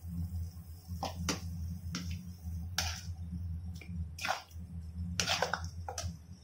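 A steel ladle stirring ground masala paste into simmering mushroom gravy in a metal kadai: a run of short, wet swishes and scrapes, about eight in all, from about a second in. A steady low hum runs underneath.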